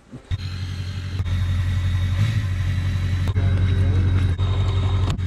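Tow vehicle's engine idling as a steady low hum, with a few light clicks over it.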